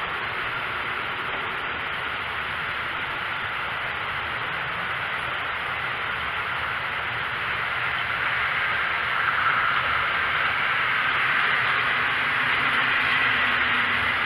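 A steady hiss that grows louder about two-thirds of the way through, with a faint low hum joining near the end.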